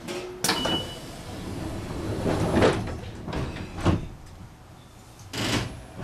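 Inside a JR West 221 series electric train running along the line: a steady rumble of the running gear, broken by four heavy knocks of the wheels over the track, spaced one to two seconds apart.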